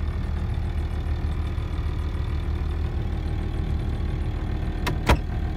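Steady low engine hum of an engine idling in the background, with two sharp clicks about five seconds in.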